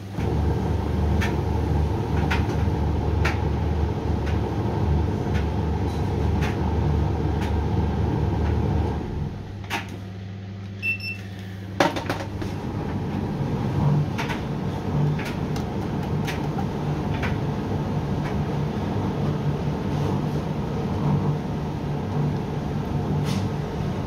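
Hoover washer-dryer running a hot tumble-dry cycle on bed linen and towels: a steady drum and motor drone with light knocks as the laundry tumbles. About nine seconds in the drum slows and pauses, and about three seconds later it starts turning again with a sharp click.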